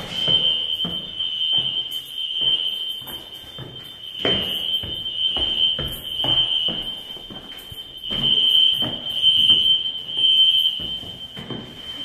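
Hotel fire alarm sounding a steady high-pitched tone in repeated pulses, with footsteps on a stairwell landing under it.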